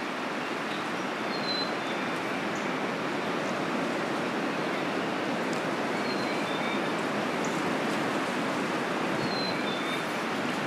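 Steady rushing outdoor noise, with a few brief high bird chirps scattered through it.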